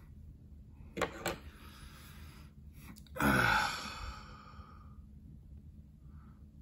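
Two light clicks about a second in as the revolver's barrel wedge is worked free and set down on the table. A little after three seconds comes the loudest sound, a man's long sighing breath with a falling voice.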